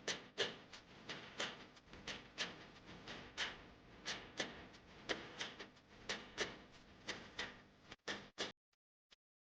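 A steady run of sharp knocks, about three a second, that stops abruptly about eight and a half seconds in.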